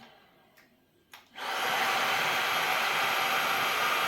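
A couple of light clicks, then a Eufy HomeVac S11 Reach cordless stick vacuum with its motorised power head is switched on about a second and a half in. It runs steadily with a thin high whine over the motor noise.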